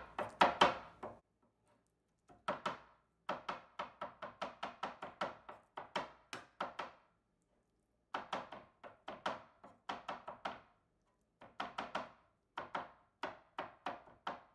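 Knife chopping heart meat finely, in quick runs of strikes at about three to four a second, with short pauses between the runs.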